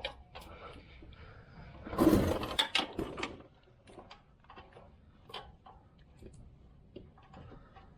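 Hand ratchet clicking in short, irregular strokes as a bolt on a newly fitted starter is tightened one tooth at a time in a tight space. A louder clunk and rustle of tool and body movement comes about two seconds in.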